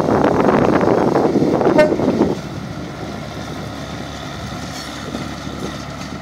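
A single-car railcar (ferrobus) passes close by, its engine and wheels making a loud, fluttering rumble. The sound drops suddenly to a quieter steady run a little over two seconds in.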